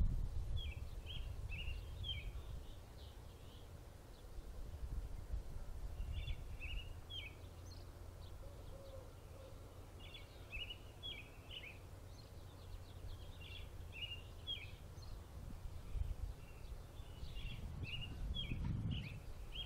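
Small birds chirping in quick clusters of short high notes every couple of seconds, over a low rumble of wind on the microphone that swells briefly near the end.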